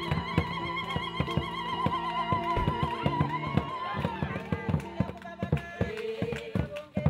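Music: a held, wavering melody line over a steady drum beat, with the melody sliding in pitch in the second half.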